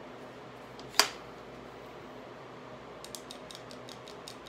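Handling of a paintball marker fitted with a 3D-printed front grip. One sharp plastic snap about a second in, then a quick run of about nine light clicks near the end.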